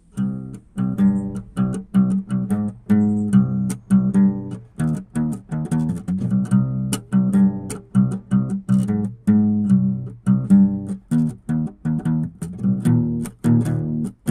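Background music: a guitar playing a quick, steady run of plucked notes.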